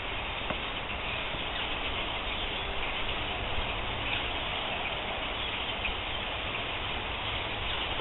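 A large flock of small birds calling at once, a dense, steady chatter with a low rumble underneath.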